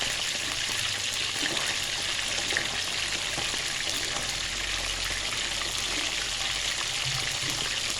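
Short mackerel frying in hot oil, a steady sizzle until it turns crisp.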